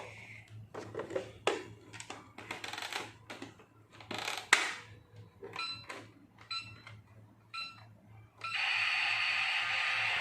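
Hard plastic toy food clattering as it is loaded into a toy microwave, then three short electronic beeps about a second apart as its buttons are pressed. At about eight and a half seconds the toy microwave's steady whirring cooking sound starts, louder than everything before it.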